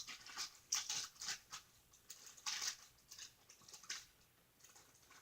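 Faint, irregular wet squishing and sticky crackles of a shampoo slime mixture being worked by hand.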